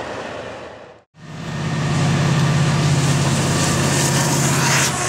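A passenger train's cars rolling past fade out about a second in. After a cut, diesel locomotives pulling a freight train run underneath with a loud, steady, low engine drone.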